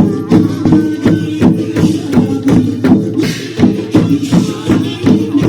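Square-dance music with a steady, fast beat.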